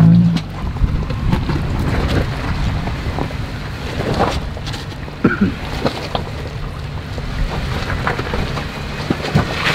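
Off-road 4x4 engine running at low revs as it crawls a rocky trail, with scattered knocks and crunches of tyres and underside on rock.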